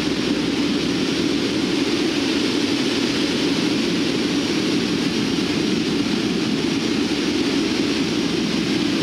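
Cabin noise of a C-130T Hercules in flight: the steady drone of its four Allison T56 turboprop engines and propellers, a constant low hum under a broad rushing hiss.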